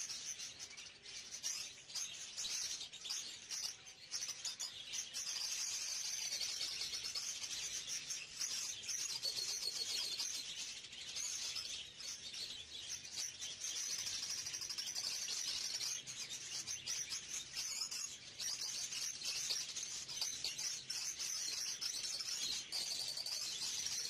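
Budgerigars chattering, a dense and continuous high twittering.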